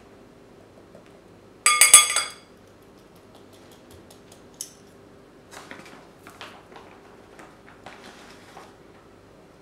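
A metal measuring spoon knocking against a glass bowl about two seconds in: a quick run of ringing clinks. Softer scraping and rustling follow in the second half as powdered clay is scooped from its bag.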